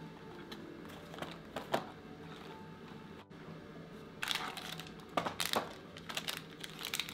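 Oreo cookie box being opened and the cookies' plastic wrapper crinkling as it is pulled out, a burst of crinkling starting about four seconds in, with a few soft clicks of handled cardboard before it.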